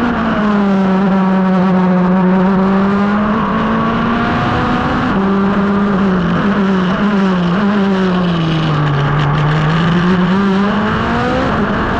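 Revolt 3P0 race car's engine heard from the open cockpit, running hard under load on a hillclimb. Its pitch steps down and up in quick gear changes, sinks to its lowest about nine seconds in, then rises again as it accelerates.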